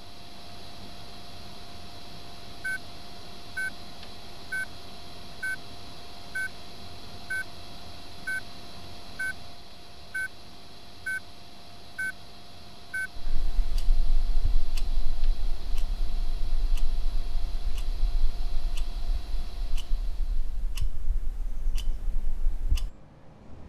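Short electronic beeps, about one a second, over a steady hum; they stop about thirteen seconds in. A loud deep rumble then takes over, with sharp ticks keeping about the same one-a-second pace, and it cuts off abruptly just before the end.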